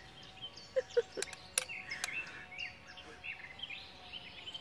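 Small songbirds chirping and singing, with a few sharp clinks of a spoon against a breakfast bowl between about one and two seconds in.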